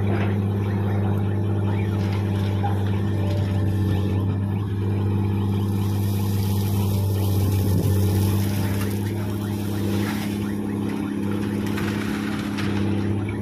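Komatsu PC200 hydraulic excavator's diesel engine running steadily under load while it digs and swings, with a dump truck's diesel idling alongside. Near the end, gravel spills from the bucket into the truck's steel bed.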